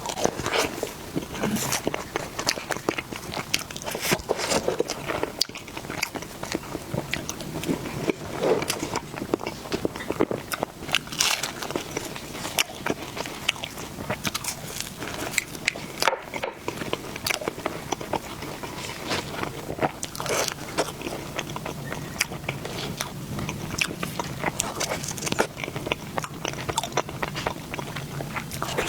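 Close-miked biting and chewing of flaky egg tart pastry: many irregular crisp crunches and crackles.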